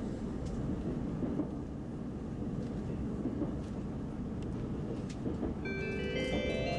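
Steady running noise inside a JR Central 373 series electric train car: a low rumble with a few faint clicks. About five and a half seconds in, the JR Central onboard announcement chime starts, a run of bell-like notes stepping upward.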